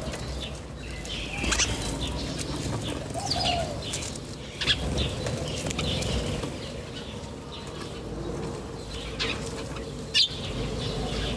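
Birds chirping: scattered short, high calls every second or so, with a few lower sliding calls, over a steady low background rumble.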